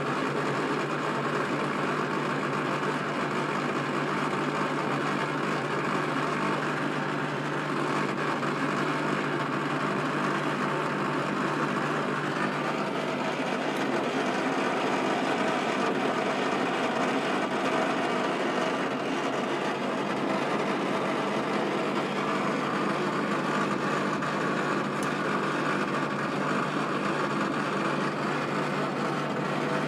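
Servis Caress 1300 washing machine on its fast spin, running steadily with a constant hum under a broad rumbling noise: the sound of very badly worn drum bearings.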